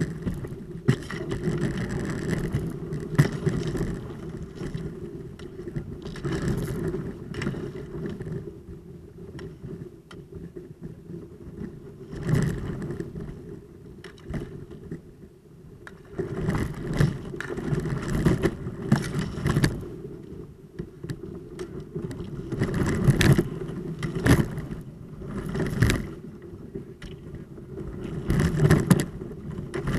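Kayak hull pushing through thin skim ice: a steady grinding scrape along the hull, broken by repeated bursts of cracking and tinkling ice shards.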